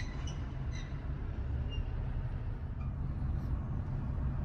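Steady low road rumble of a car or truck driving, heard from inside the cabin.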